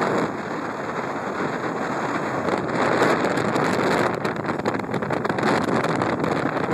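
Wind rushing over the microphone of a moving vehicle, a steady rushing noise with road noise underneath and no clear engine note.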